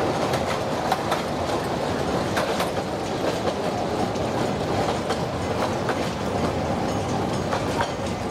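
Bagnall 0-4-0 saddle-tank narrow-gauge steam train running along the track just out of view: a steady rumble with scattered, irregular clicks and rattles from the wheels and rolling stock.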